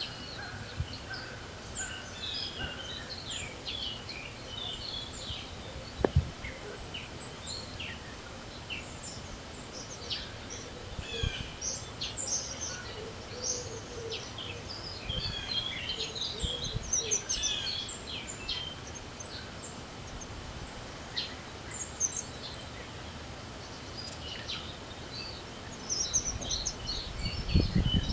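Several songbirds chirping and singing over steady outdoor background noise, with one sharp knock about six seconds in. Near the end, wind buffets the microphone with a low rumble.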